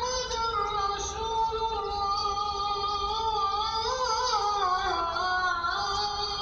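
A muezzin chanting the adhan, the Islamic call to prayer, in one long drawn-out phrase with wavering ornaments that dips lower about five seconds in.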